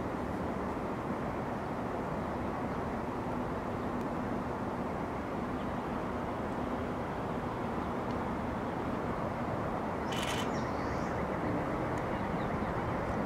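Steady distant city hum, swelling slightly near the end as a Shinkansen train comes along the elevated line. A brief high chirp about ten seconds in.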